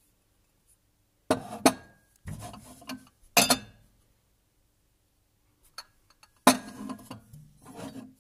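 Rubbing and light clinks from handling black-glazed Gibson & Sons pottery tea ware, in four or five short bursts, some opening with a sharp click.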